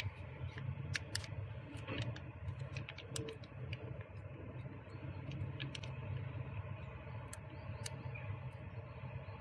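Irregular small clicks and crackles from a plastic tube of oil additive being squeezed and handled, over a steady low hum.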